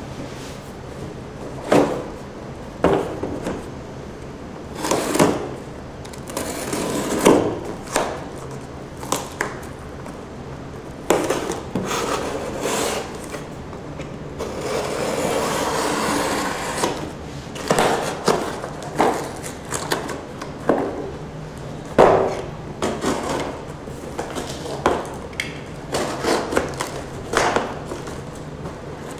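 A cardboard shipping box being handled on a glass tabletop: a utility knife slits the packing tape, and the box is slid and turned over. There are repeated knocks and scrapes throughout, with a longer stretch of rasping cardboard noise about halfway through.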